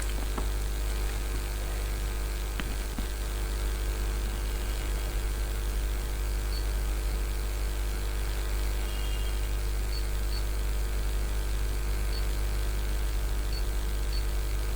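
Steady electrical hum with a fan-like whir, and a few faint, short high-pitched blips in the second half.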